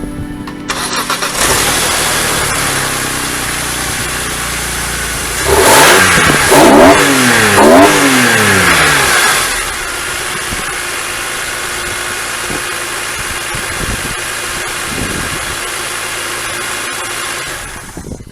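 BMW E46 M3's inline-six starting about a second in, revved a few times in quick succession, then idling steadily until it cuts off at the end. It is running again after a new ignition coil on cylinder six, fitted to cure a misfire.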